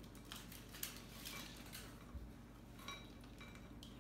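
Faint rustling and a few light clicks and taps from Kinder Surprise eggs being opened and handled: foil wrappers, chocolate shells and the yellow plastic toy capsules.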